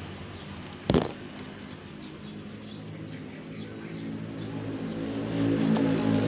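A motor vehicle's engine running, getting louder toward the end, with one sharp knock about a second in and faint bird chirps.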